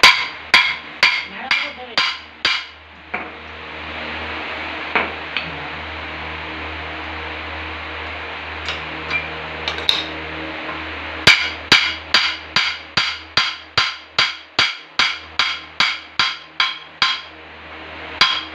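Hammer blows on the bent steel shaft of a rice huller, being knocked straight. It starts with a quick run of about six ringing metal strikes, then gives a few scattered taps, and ends with an even run of about eighteen strikes at about three a second.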